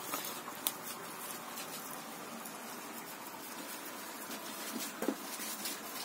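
Quiet cooking sounds at a wood-fired hearth: faint crackle and rustle as dough is pressed onto a leaf, with a sharp click about two-thirds of a second in and a knock about five seconds in.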